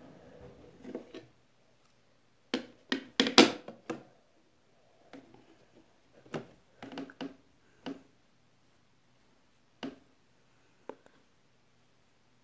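Scattered sharp clicks and knocks of small makeup items being handled: palette, cases and applicator picked up and set down, with faint scuffing between. The loudest knocks come in a quick cluster about three seconds in, then single clicks every second or two.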